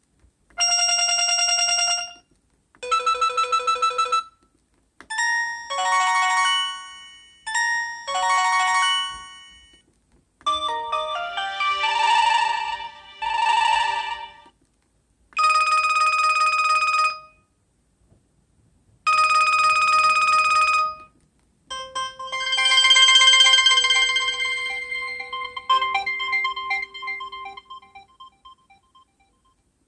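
Default ringtones of an LG VX8600 cell phone: electronic ring patterns and short melodies in bursts of one to four seconds with brief silences between them, ending in a longer melody that fades out.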